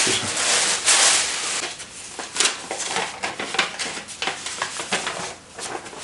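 Tissue paper crinkling and rustling as it is pulled off and handled, loudest in the first second or two. After that come lighter, scattered rustles and taps of cards and envelopes being handled.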